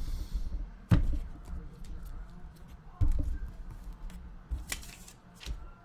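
Handling noises on a tabletop: scattered clicks and knocks, the sharpest about a second in and about three seconds in, over a low rumble.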